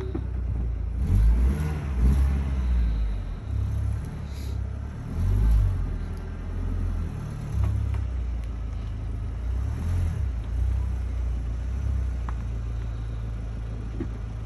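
Volkswagen Golf Mk4 GTI 337 Edition's 1.8-litre turbocharged four-cylinder engine running at low revs while the car is moved slowly, with a low rumble that swells briefly a few times under light throttle.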